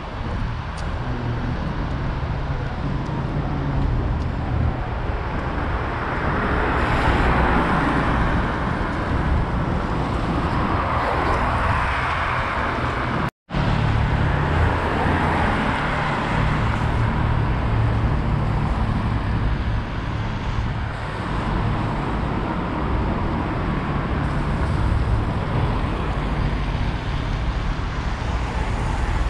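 Street traffic: a steady hum of engines and tyres, with several cars passing that swell and fade. The sound cuts out for an instant about halfway through.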